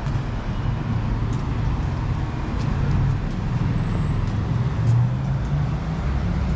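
Urban road traffic: a steady low rumble of motor vehicles running and passing on the street.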